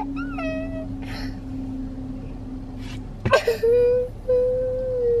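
Toddler girl crying in a car seat: a short wail, a sobbing breath, then a long drawn-out wailing cry from just past the middle.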